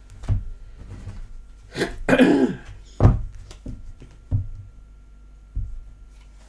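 A person coughs about two seconds in. A sharp knock follows just after, then a few lighter taps.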